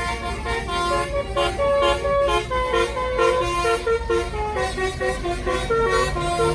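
A bus's basuri telolet horn, a multi-tone musical horn, plays a quick melody, note following note without a break, over a steady low rumble.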